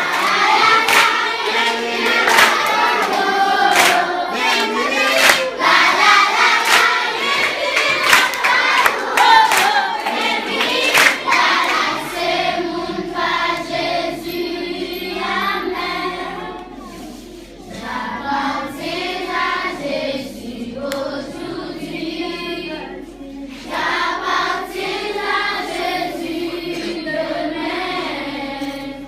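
A group of voices singing together, with rhythmic hand clapping over roughly the first twelve seconds; the clapping then stops and the singing continues.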